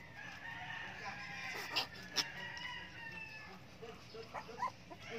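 A rooster crowing once, a long held call of about three seconds with slowly falling pitch. Two sharp clicks come partway through, and puppies give a few short high squeaks near the end.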